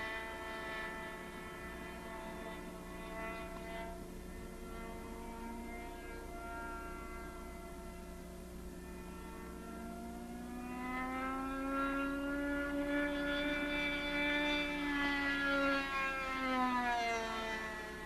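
Model-aircraft glow engine (YS 45) driving the pusher prop of an RC F-16 model in flight. It is faint at first, grows louder and a little higher about ten seconds in, then drops in pitch near the end as the plane passes. A steady electrical hum runs underneath.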